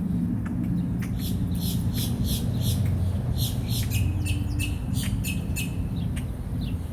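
A bird calling in a quick run of short, high chirps, about three a second, in two bursts with a short break between, over a low steady rumble.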